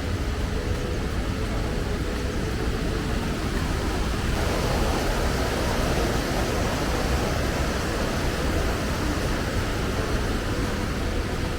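Steady rushing of a mountain river, a continuous noise with a deep rumble underneath, swelling a little about four seconds in.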